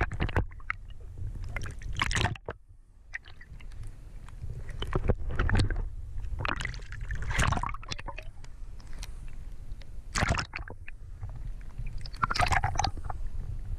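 Muffled water noise picked up by an underwater camera in its housing as it is pulled up through the water: a steady deep rumble with irregular gurgles and knocks.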